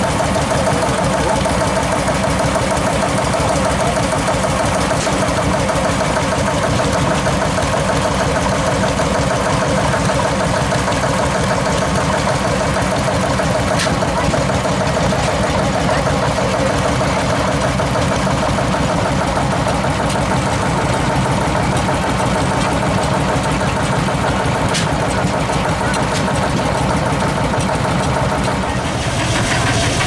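Vintage single-cylinder stationary engines with large flywheels running steadily; the sound shifts near the end.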